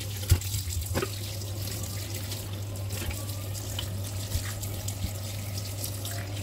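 Kitchen tap running onto a raw whole chicken being rinsed by hand in a stainless steel sink, water splashing and draining into the basin. A sharp knock just after the start is the loudest moment.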